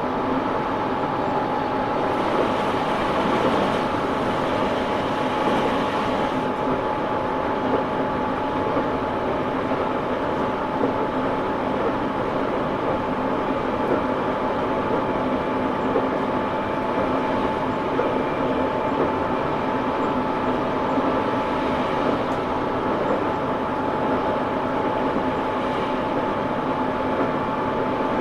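Tobu 9000 series car 9206 running at steady speed, heard inside the car: a steady rolling rumble with a steady whine from its armature-chopper-controlled traction motors. The motor sound is unlike the usual 9000 series; the recordist suspects a different motor was fitted for a test.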